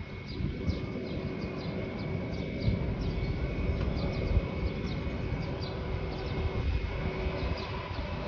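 Small birds chirping in quick, repeated short notes over a steady low rumble.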